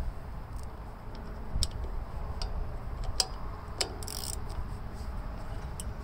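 A handful of light metal clicks, irregularly spaced, as a socket ratchet is handled and fitted onto the carburetor mounting bolts of a Gravely tractor engine, over a low background rumble.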